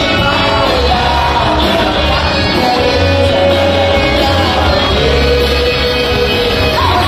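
Live band with a horn section, drums and electric guitar playing a song, with sung vocals over it.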